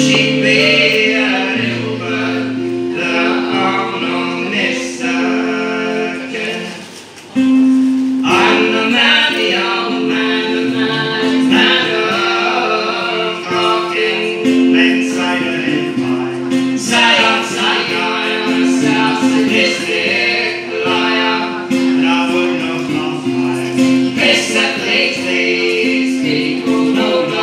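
Button accordion and strummed acoustic guitar playing a folk tune together, the accordion holding and stepping through melody notes over the guitar's rhythm. The music thins out briefly about seven seconds in, then comes back in full.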